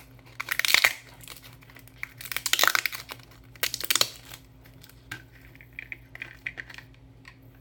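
Crinkling and rustling of wrapping being pulled off a plastic bottle, in three loud crackly bursts over the first few seconds, then softer rustling near the end.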